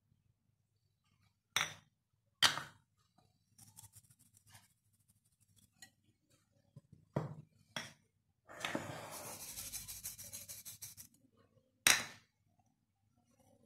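Crockery clinking against a glass mixing bowl as spices are tipped in from small dishes: five sharp clinks spread out, with about two seconds of rapid scraping or rubbing a little past the middle.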